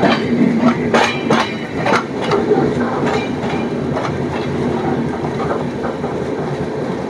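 Passenger train coach running along the track, its wheels knocking sharply over rail joints several times in the first two seconds, then settling into a steady rumble.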